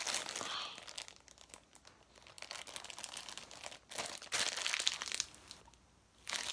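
Slime being squeezed and stretched by hand, crackling and crinkling in several short bursts with brief pauses between them.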